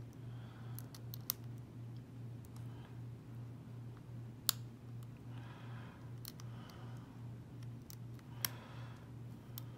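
Half-diamond lock pick scraping and clicking against the pin stacks inside a Corbin padlock's keyway, working the back pins under tension. Scattered sharp clicks, the loudest about four and a half seconds in.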